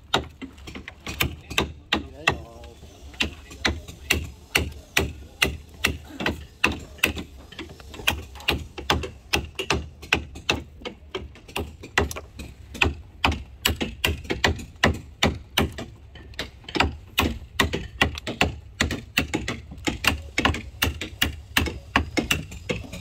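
Steady hammering: sharp blows struck at an even pace, about two to three a second, with lighter taps between, typical of work on a wooden hull.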